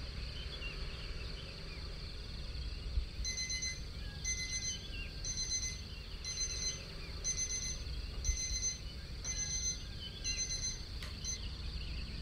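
Electronic alarm clock beeping, short beeps repeating about once a second, starting about three seconds in, over a steady low hum.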